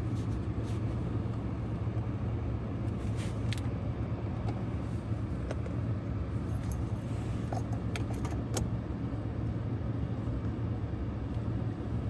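Ram 1500 pickup idling, a steady low hum heard from inside the cab, with scattered light metallic clicks of small screws and the shift-knob parts being handled.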